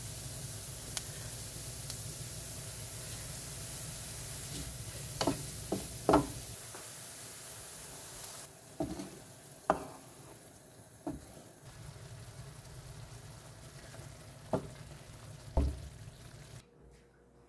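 Mushrooms and onions sizzling in a frying pan, with a handful of sharp knocks of utensils against the pan. About halfway through, cream is poured in and the sizzle drops to a much quieter simmer under occasional knocks and stirring.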